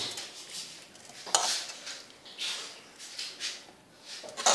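Metal ladle clinking and scraping against a metal pot and a porcelain bowl while soup is served, a few separate clatters about a second apart.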